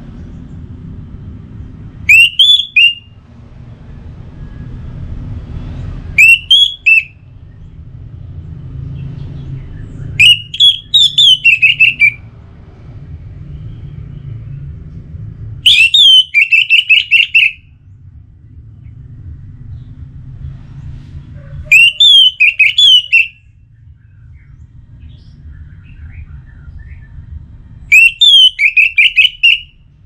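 Orange-headed thrush singing: six loud phrases of rapid whistled notes, one every four to six seconds, each lasting one to two seconds. A low rumble fills the gaps between phrases.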